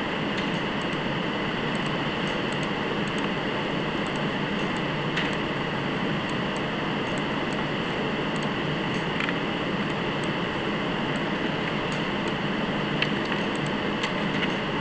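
Steady hiss and hum of background room noise on the microphone, with a few short, faint clicks of a computer mouse.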